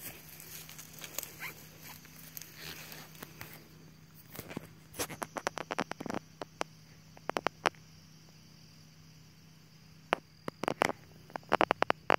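Footsteps rustling and crackling through dry leaf litter. From about four seconds in come clusters of sharp clicks and crackles as a light plastic cup is handled and set down on the leaves, with more near the end.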